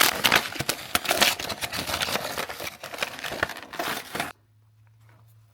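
Crinkly plastic packaging being handled and pulled open, a dense run of crackles and sharp clicks. It stops abruptly about four seconds in, leaving a faint low hum.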